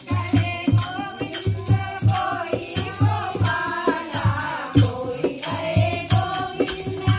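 Music with a steady drumbeat and shaker or jingle percussion, with singing voices over it.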